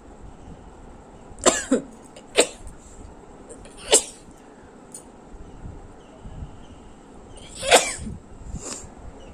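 A woman sneezing about six times, sharp and sudden, the sneezes set off by tickling inside her nose with a thin broom bristle. Two come in quick succession about a second and a half in, and the loudest comes near the end.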